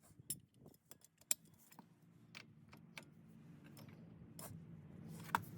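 Light metallic clinks and rattles of tools and hardware being handled, a scattered series of sharp clicks with one louder knock about a second in and a ringing clink near the end. A low steady hum rises underneath toward the end.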